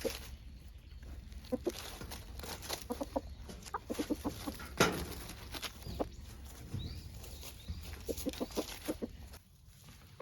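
Araucana chicken clucking in short, quick runs of several notes, with pauses between the runs. A single sharp knock about five seconds in.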